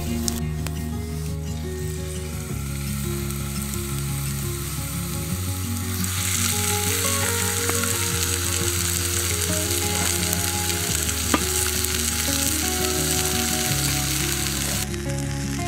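Steak sizzling in a cast-iron pan on campfire embers: a loud frying hiss that starts about six seconds in and cuts off suddenly near the end. Background music plays throughout.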